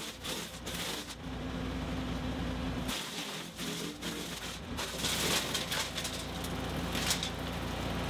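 Frontier WC1105 PTO-driven wood chipper running on a compact tractor, its flywheel and the tractor engine giving a steady hum while a hand-fed branch is chipped in repeated sharp cracks, which come thicker and louder from about five seconds in.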